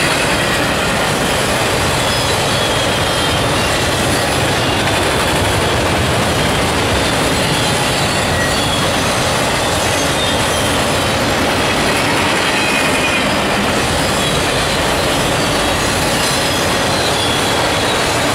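Autorack freight cars of a fast-moving train passing close by: a loud, steady rumble of steel wheels on the rails, with faint high squeals from the wheels now and then.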